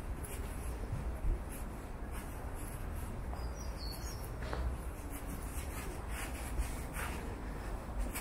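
Street ambience: a steady low rumble of city traffic, with light scuffing footsteps about twice a second. A short high chirp comes about four seconds in.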